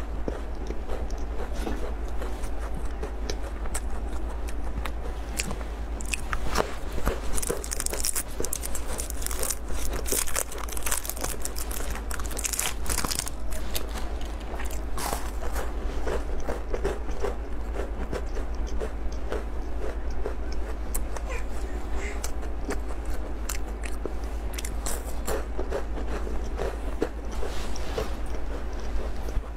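Close-up biting and chewing of chocolate bars: soft crunches and small clicks from the mouth throughout, with a run of sharper, crisper crackling between about 7 and 13 seconds in. A steady low hum lies underneath.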